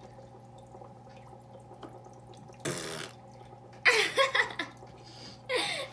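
A short wet slurp while eating sticky natto about two and a half seconds in, then a burst of laughter a second later and another laugh near the end.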